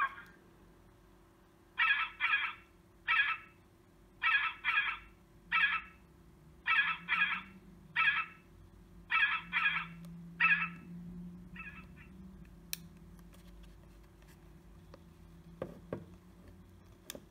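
Recorded goose honks played through an electronic game caller's speaker: short calls in a repeating pattern of a double honk then a single, about a dozen over ten seconds, growing fainter before they stop. A sharp click and a couple of soft knocks follow near the end.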